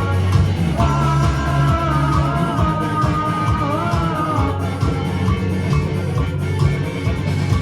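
A rock band playing live and loud: drum kit, bass and electric guitars, with a melody line wavering above the steady band sound for a few seconds.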